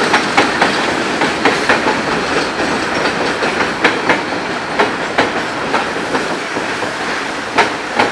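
Passenger cars rolling across a steel girder bridge, their wheels clacking over the rail joints in close pairs of clicks about once a second over a steady rolling rumble that slowly fades as the last car moves away.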